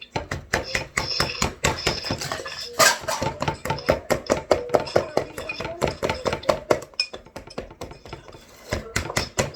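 A mixing utensil beating biscuit dough in a bowl, knocking against the bowl in rapid, uneven strokes several times a second with a faint ring.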